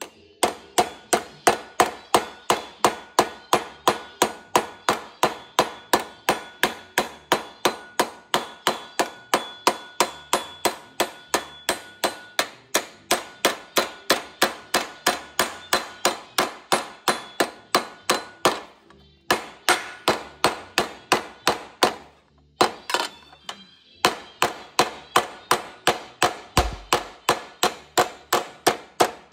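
Snap-on linear-stretch hammer striking a sheet-steel flange over a 3/16-inch wire against a steel bench, folding the metal over the wire to form a wire edge. Rapid, even metal-on-metal blows with a ringing tone, about three a second, pausing briefly twice in the last third.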